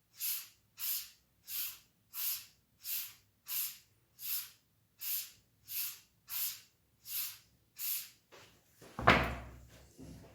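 Razor stroked across a Nakayama Karasu awasedo, a Japanese natural finishing stone, each stroke a short hiss. There are about a dozen strokes at an even pace, then the strokes stop and a single loud knock comes near the end.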